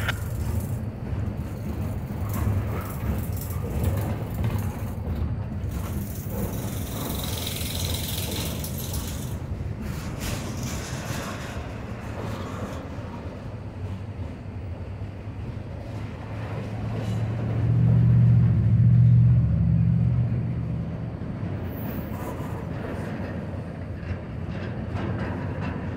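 Double-stack intermodal freight train of container well cars rolling past close by, a steady low rumble from the cars on the rails. The rumble swells louder for a few seconds about three-quarters of the way through.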